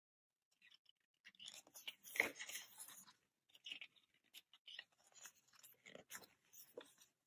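Paper rustling and crinkling as the pages of a glossy photo book are turned and handled, with the loudest rustle about two seconds in and fainter handling crackles after.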